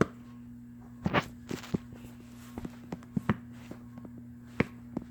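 A series of irregularly spaced light knocks and clicks, about a dozen, over a steady low hum.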